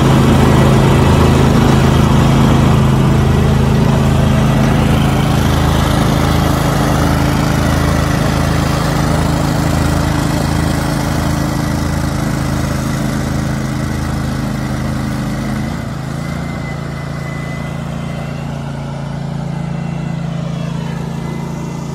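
Toro ProCore 648 walk-behind greens aerator running with its slicer tine head working, a steady engine note with a regular low pulse. About three-quarters of the way through the pulse stops and the engine note drops slightly and gets quieter.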